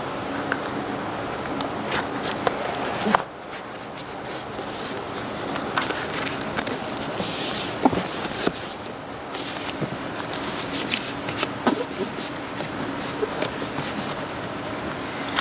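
Hands rubbing and pressing Resisto self-adhesive membrane onto a window opening: a steady scraping rustle broken by many sharp crackles and clicks.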